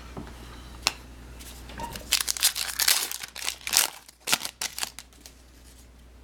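Football trading cards and their packaging being handled: a light click about a second in, then a run of short rustling, crinkling scrapes from about two to five seconds.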